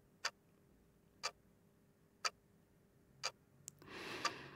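A clock ticking once a second, four ticks, with a soft rush of noise near the end.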